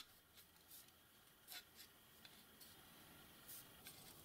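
Near silence, with a few faint, scattered clicks and rubs of aluminium grinding-rest parts being handled.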